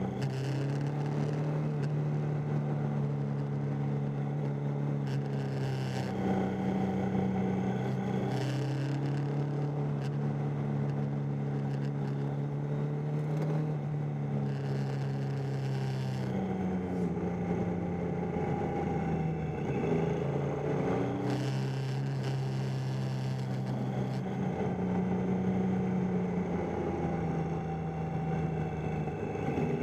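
Triumph Tiger 800's three-cylinder engine running under way through a run of bends, its note holding steady for stretches and several times dropping and climbing again, over road and wind noise.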